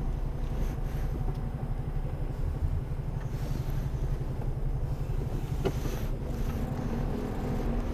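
Mercedes-Benz Antos 1824 lorry's diesel engine idling steadily while the truck waits stationary, heard from inside the cab.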